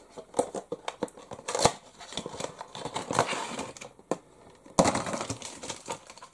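Cardboard-and-plastic toy packaging being handled: a run of irregular clicks, taps and crinkling rustles, louder about a second and a half in and again near five seconds.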